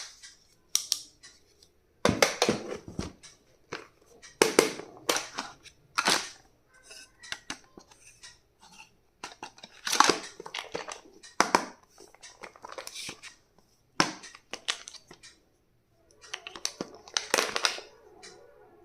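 Stationery being unboxed and handled: irregular crinkling and tearing of packaging, with sharp clicks and knocks of small plastic items.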